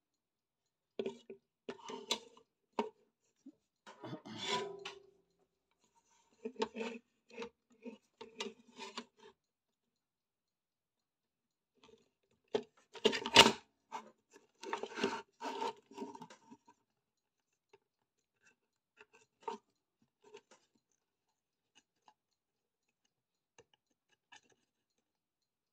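Scraping and rubbing of a soldering iron tip and a wire against the metal chassis of an old power supply while a stubborn soldered wire is worked loose. It comes in irregular bursts of short scrapes and clicks, loudest about halfway through, then thins to a few faint ticks.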